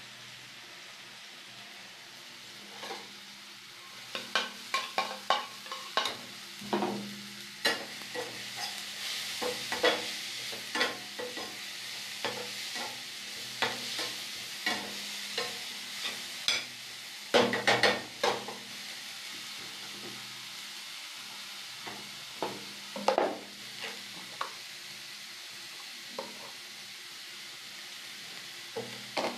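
Chopped vegetables sizzling in a metal karahi while a perforated steel spatula stirs them, scraping and knocking against the pan in irregular runs of clicks. The first few seconds hold only the steady hiss; the loudest scrapes come a little past halfway.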